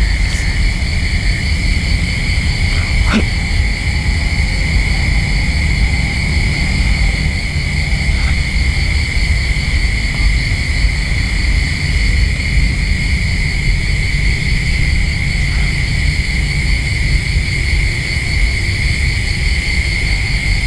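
Steady low rumbling drone under a continuous high, insect-like chirring, an eerie ambience bed; a faint click about three seconds in.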